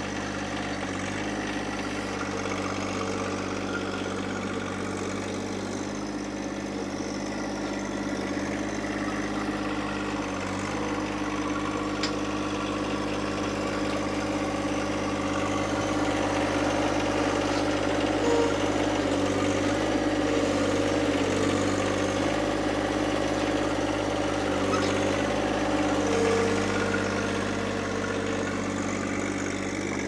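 John Deere sub-compact tractor's diesel engine running steadily, growing louder in the second half as its front-loader forks pick up a heavy poplar log. A wavering whine rides over the engine near the end.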